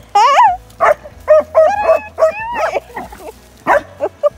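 English springer spaniels playing rough together, giving a string of short, high-pitched yelps and whines, about two a second.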